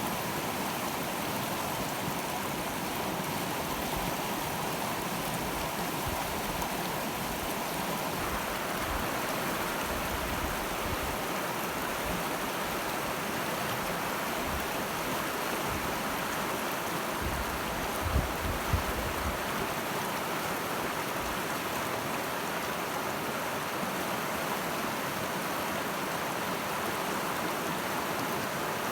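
Middle Fork Snoqualmie River rushing, a steady even water noise. A few brief low thumps break in once, a little past halfway.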